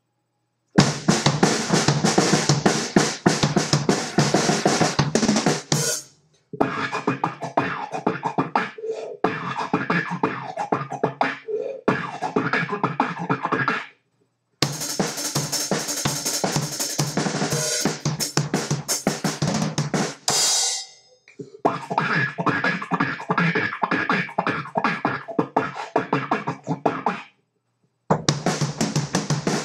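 A drum kit and a beatboxer on a microphone taking turns in short phrases of about six seconds each, with brief silences between: drums first, then beatboxing, drums again, beatboxing again, and the drums starting up near the end.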